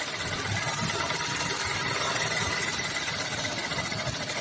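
ZOYER ZY3153 industrial zigzag sewing machine with a binder attachment running steadily at speed, a fast even stitching rattle.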